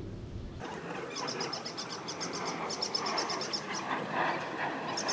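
Birds chirping in rapid, high-pitched trills, repeated in short runs over a light outdoor background, starting about a second in.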